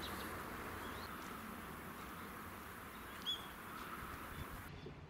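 Quiet outdoor ambience with a few faint bird chirps, one short, sharper call a little past the middle. The background hiss cuts off abruptly near the end.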